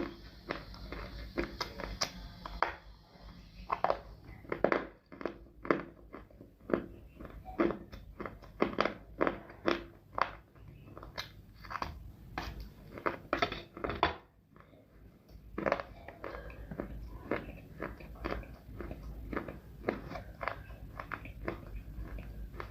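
A person biting and chewing pieces of dry edible clay: irregular crisp crunches several times a second, with a short pause about two-thirds of the way through.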